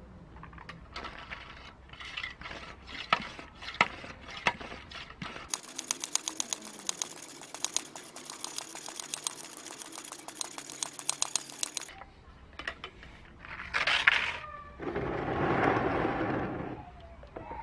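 Restored brass-and-copper hand-pump garden sprayer being handled and pumped: metallic clicks and knocks, then a long run of rapid, even clicking. Near the end comes a sharp burst and a couple of seconds of rushing, splash-like noise as the sprayer is moved over a tub of water.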